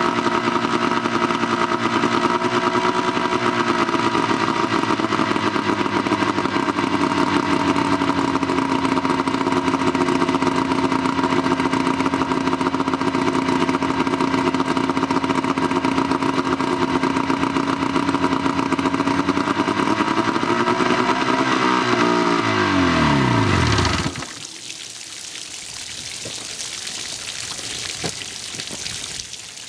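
Suzuki DT-40 two-stroke outboard running steadily on the trailered skiff. About 21 seconds in it picks up briefly, then winds down and stops just after 24 seconds, leaving a softer steady hiss.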